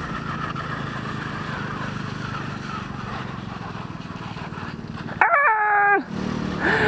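125cc scooter engine running at low speed while riding, with road and wind noise. About five seconds in, a loud high whining cry cuts in for under a second, sliding slightly down in pitch.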